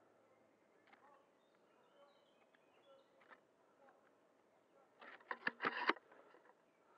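Quiet woodland with a few faint bird chirps, then about five seconds in a second-long flurry of rustles and clicks as the scope-mounted airsoft sniper rifle is handled and swung to a new position.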